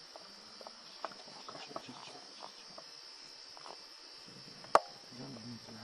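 Night insects, crickets, trilling steadily in a high, even chorus, with scattered small clicks and one sharp, loud click about three-quarters of the way through.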